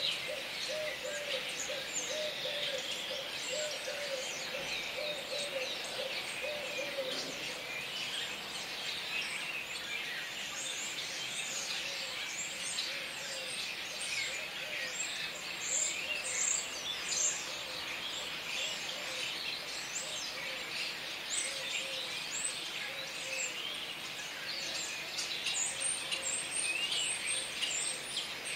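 A flock of common starlings chattering: a dense chorus of high whistles, clicks and chirps, busier near the end. For about the first seven seconds a lower call repeats steadily underneath.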